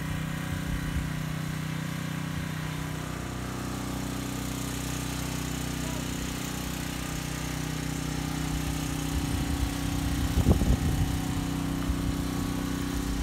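A small engine running steadily at a constant speed, an even hum that does not rise or fall.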